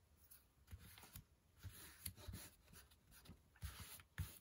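Near silence with faint handling of paper: soft rustling and rubbing, and a few light taps.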